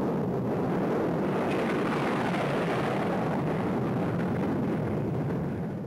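Northrop F-5's twin General Electric J85 turbojets at high power on a takeoff run from a rough dirt strip: a loud, steady jet noise that begins to fade right at the end.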